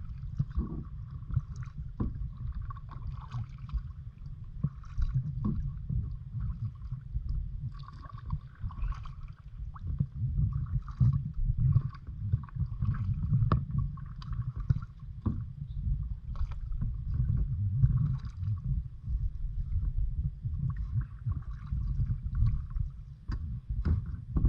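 Kayak being paddled: irregular paddle splashes and knocks on the hull over a steady low rumble.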